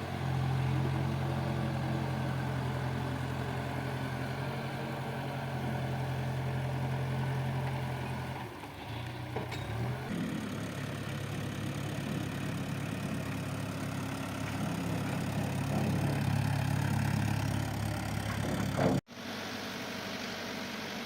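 Diesel engine of a JCB backhoe loader running steadily with a low hum; its note dips and changes about halfway through, then carries on. Near the end the sound breaks off for an instant and comes back quieter.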